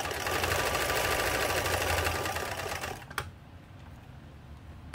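Montgomery Ward J1460 sewing machine running steadily at speed, sewing a wide zigzag stitch through flannel, then stopping about three seconds in. A sharp click follows just after it stops, and another near the end.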